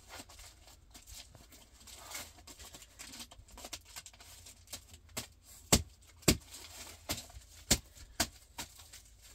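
Aluminium foil being crumpled and folded by hand, a run of small crinkles with a few sharp, louder crackles in the second half.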